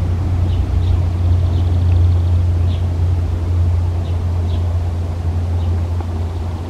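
Steady low rumble, with a few faint, short, high bird chirps now and then.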